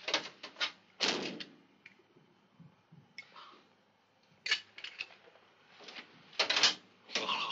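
Clusters of short knocks and clinks as objects, among them a small glass bottle, are handled at a desk. There are quick taps at the start, a heavier knock about a second in, and more clattering around the middle and near the end.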